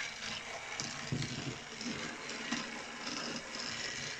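Two battery-powered Mattel TrackMaster toy engines running on plastic track: a steady small-motor whir with light clicking and rattling from the wheels and cars on the track.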